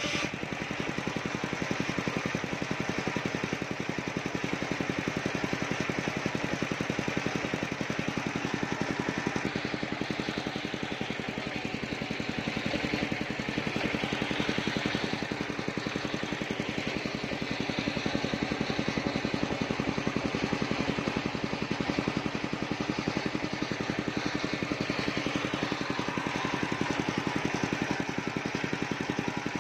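Engine-driven portable circular sawmill running steadily, its large blade ripping sengon (albizia) wood as planks and logs are fed through it.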